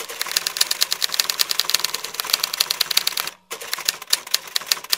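Typing sound effect: a fast run of key clicks, briefly pausing about three and a half seconds in, then carrying on.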